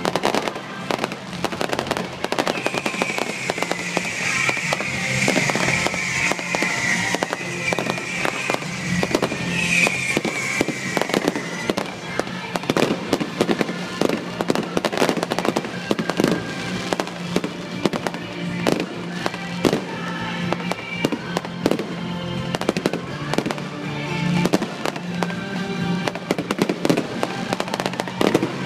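Fireworks going off in quick succession, a dense run of bangs and crackles, with music playing underneath.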